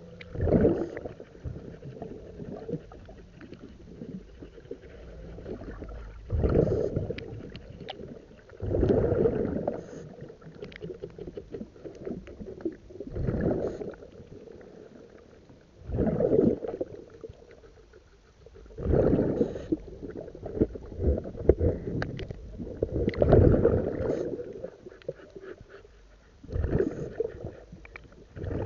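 Underwater sound of a scuba diver breathing: a rumbling gush of exhaled bubbles from the regulator every three or four seconds, with quieter gurgling between the breaths.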